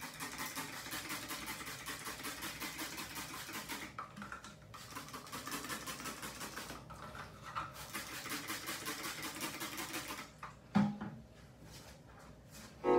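Trigger spray bottle pumped rapidly onto dreadlocks, about four to five sprays a second, in three runs of a few seconds with short pauses between. A single thump comes shortly before the end.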